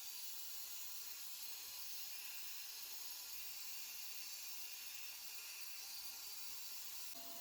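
A steady hiss that sits mostly high in pitch, with a faint steady tone coming in near the end.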